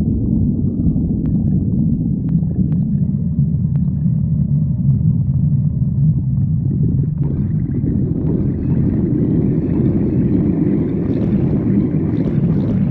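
Human stomach growling: a continuous low rumble that takes on a higher, brighter edge about halfway through.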